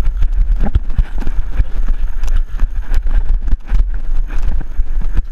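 Wind buffeting the microphone of an action camera, a loud low rumble, with many irregular knocks and bumps as the camera is jostled along.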